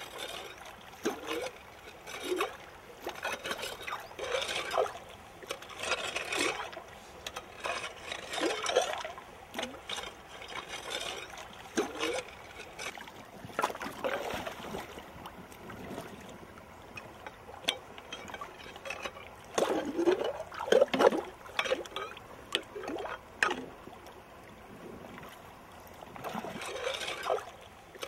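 Water splashing and sloshing in irregular bursts as a person wades through a shallow creek in waders and sweeps a long-handled pole through the water. The loudest splashes come about two-thirds of the way in.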